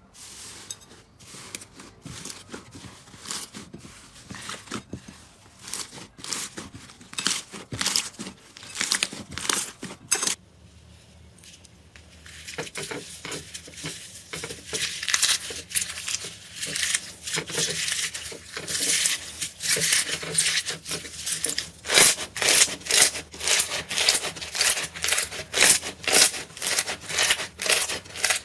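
Slime being squeezed and poked by hand, giving a run of crackling, popping clicks. About ten seconds in the sound changes abruptly to louder, sharper crackles, with strong pops about twice a second near the end.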